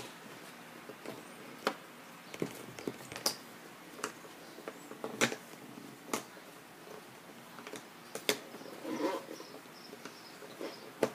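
Scattered light taps and clicks of jigsaw puzzle pieces being handled and set down on a tabletop, about half a dozen in all, with a faint brief murmur of a child's voice about nine seconds in.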